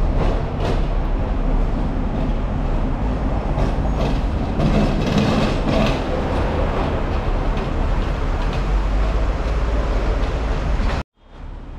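City street traffic noise with a low rumble as a Hong Kong double-decker electric tram runs along its rails. The sound cuts off abruptly about eleven seconds in.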